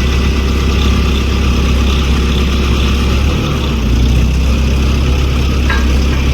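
Volvo ECR88 compact excavator's diesel engine running steadily with a low drone, with a couple of short clicks near the end.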